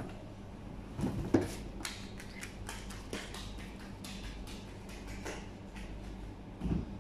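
Light, irregular taps and soft thumps, several a second: a toddler's bare feet running across foam floor mats, over a faint steady hum of the room.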